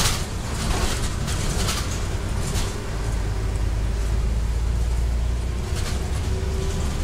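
Scania city bus heard from inside the cabin while driving: a steady low engine drone, with light rattles and clicks from the bus in the first few seconds.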